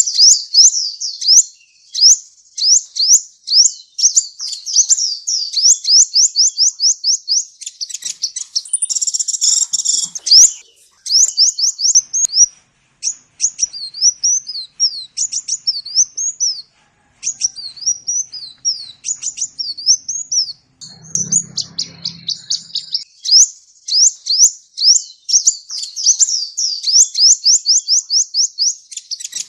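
A sunbird (the Indonesian 'kolibri') singing a long, high-pitched song of rapid sweeping notes in fast trills and varied phrases, with a buzzy burst about nine seconds in.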